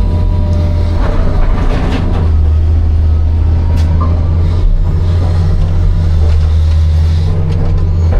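Hitachi 260 excavator's diesel engine running steadily under load, with a burst of rougher scraping noise between one and two seconds in.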